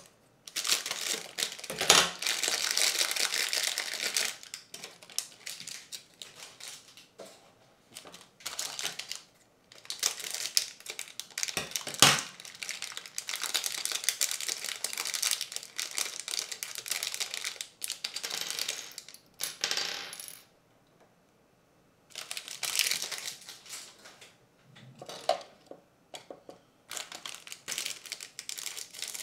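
Plastic parts bags crinkling and rustling as they are opened and handled, with sharp clicks of small hard kit parts dropped or set down on a tabletop, two of them louder than the rest.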